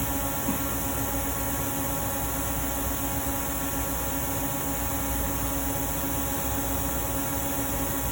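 Steady mechanical hum with an even hiss, with a faint tap about half a second in.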